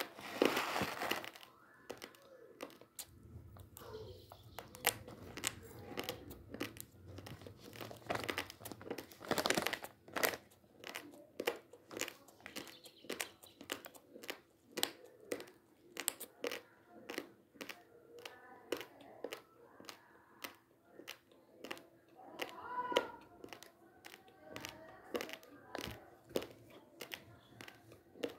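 Plastic basmati rice packet crinkling as it is handled, a run of sharp, irregular crackles.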